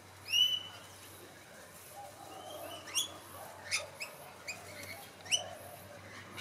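Short, high-pitched animal chirps and squeaks. A loud arched call comes just after the start, followed by several quick upward-sweeping chirps with softer chirps between them.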